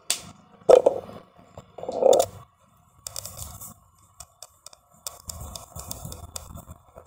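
Whiteboard being wiped clean by hand: a dry rubbing, scraping sound in strokes from about three seconds in, with a gap before a second spell of wiping. Before that come a sharp click and two short, louder knocks or squeaks in the first two seconds.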